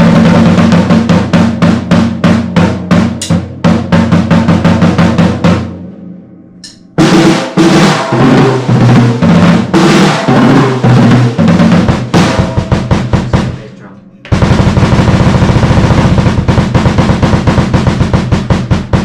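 Floor tom of a Yamaha DP series drum kit, on its stock, barely tuned heads, struck in fast repeated strokes with a deep ringing pitch. After a short pause come quick strokes that step up and down in pitch. After another pause comes a dense, even run of fast strokes.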